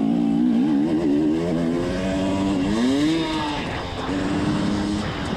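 Enduro dirt bike engine running under throttle, its pitch wavering, rising in a rev about halfway through, dipping briefly a second later, then running steady again.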